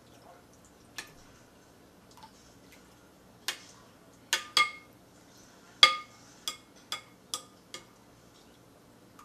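Kitchenware clinking: a run of about ten sharp knocks of a utensil against dishware, irregularly spaced, each with a short ring. The loudest comes about six seconds in.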